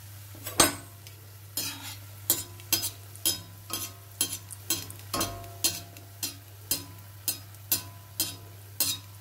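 A steel slotted spoon clinks against the steel kadai about twice a second, each clink ringing briefly, while it ladles hot oil over a battered paneer pakora. Under the clinks, the oil sizzles faintly as the pakora deep-fries.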